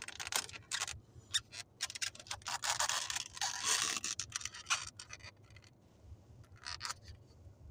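Plastic snap-on lid being pulled off a soup cup that sits in a foam takeout container. A string of sharp clicks and scraping crinkles runs for about five seconds, with one more brief scrape near the end.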